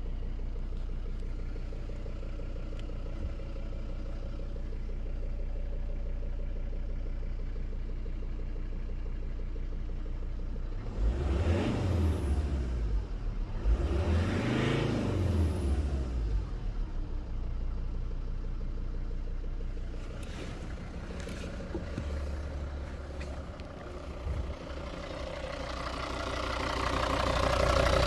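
Volvo V40 D3 diesel engine idling with a knock, blipped twice about eleven and fourteen seconds in, then getting louder again near the end. The owner wonders whether the knocking comes from the injectors.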